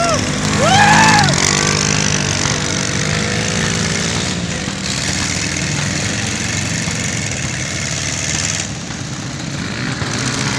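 Engines of quad bikes and a trike running and revving on a dirt track, with the pitch rising and falling over the first few seconds before settling into a steady drone. Whooping shouts rise and fall at the very start.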